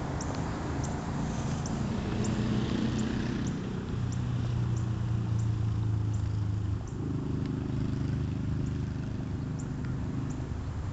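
A steady low motor hum, like an engine running, that shifts pitch about seven seconds in, with faint regular ticks about every two-thirds of a second, in step with footsteps on asphalt.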